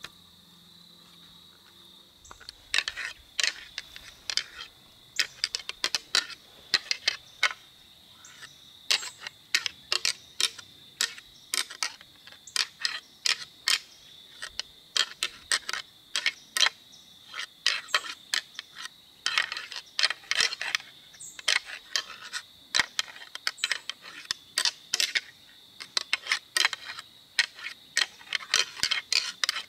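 A pair of whitetail deer antlers rattled together, with bursts of rapid clicking and clashing starting about two seconds in. This is antler rattling to imitate two bucks fighting during the rut.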